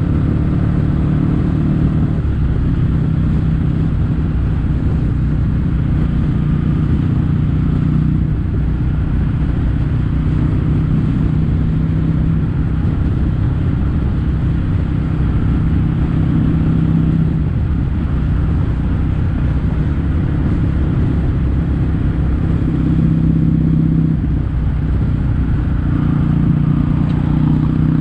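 Kawasaki W800's air-cooled parallel-twin engine running at a steady cruise through a Yamato stainless-steel Cabton-type silencer, the exhaust note rising and easing a little several times with the throttle.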